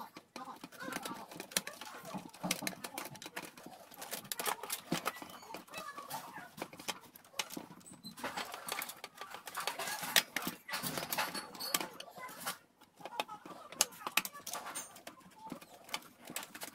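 Plastic housing and paper-guide parts of a Canon i-SENSYS LBP6670dn laser printer handled by hand: irregular clicks, taps and light knocks as the parts are pressed and fitted.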